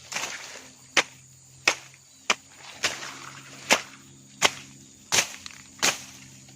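Rhythmic chopping strikes while vegetation is cleared by hand, about nine sharp swishing hits, roughly one every 0.7 seconds.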